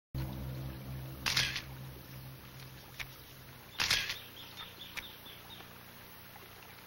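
SLR camera shutter clicking twice, about two and a half seconds apart, the second click the louder, with a few faint clicks between. A low steady hum sits under the first half and fades out.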